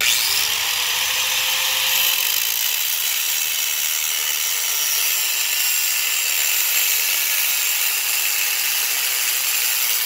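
Cordless angle grinder cutting a square opening into a pipe: the motor starts suddenly and runs steadily under load, a loud, high-pitched cutting noise.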